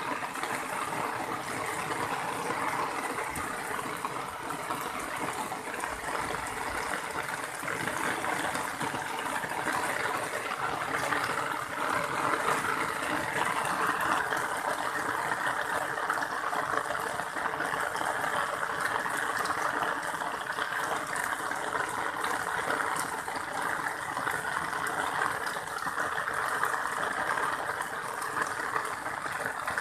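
Heavy rain pouring onto an asphalt road: a steady, dense hiss of falling drops.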